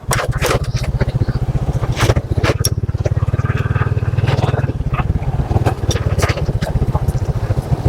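Small motorcycle engine running steadily while being ridden, its fast, even firing pulses close to the microphone. Irregular crackles sound over it.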